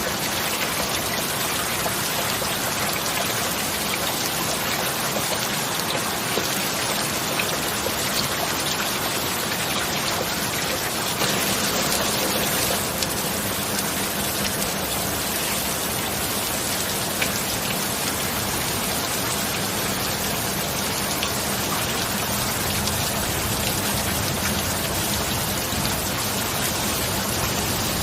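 Steady heavy rain falling, an even dense hiss that swells slightly about eleven seconds in.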